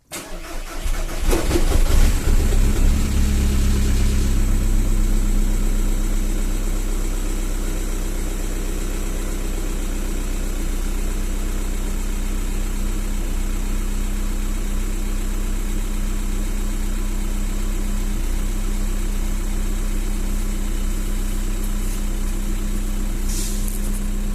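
2003 Volkswagen Bora's 1.9 TDI PD four-cylinder turbodiesel (ATD) cold-starting at 0°C: the starter cranks for about a second and a half before the engine catches. It runs loudest for a few seconds, then settles to a steady idle.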